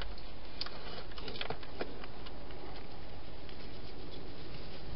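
A few faint, scattered clicks and rustles from a wild hedgehog moving about by a garden feeding box, over a steady hiss from the camera's microphone.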